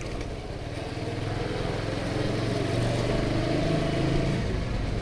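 Motorcycle engine under way, heard from the rider's helmet chin mount. The engine note rises steadily as the bike accelerates, then drops away about four and a half seconds in.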